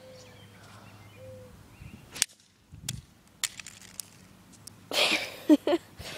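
Plastic walkie-talkie slammed against the ground: a few sharp clicks, then about five seconds in a loud impact and a scraping slide across the ground, with one sharp crack in the middle.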